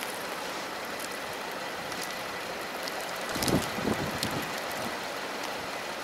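Steady hiss of rain falling in wind, with gusts buffeting the microphone about three and a half seconds in.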